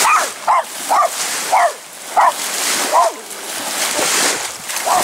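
A dog barking repeatedly, about eight sharp barks roughly half a second to a second apart. Beneath it is the hiss of boat-wake waves washing up onto a sandy shore.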